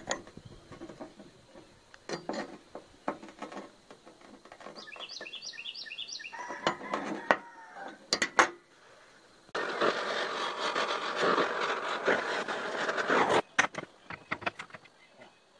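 Scattered light metal clinks and taps, then about four seconds of loud steady hiss from a gas torch heating a steel railroad spike red-hot, which cuts off abruptly.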